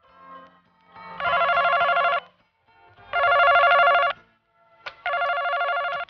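Desk telephone ringing: three rings, each about a second long with a trilling tone, evenly spaced about two seconds apart.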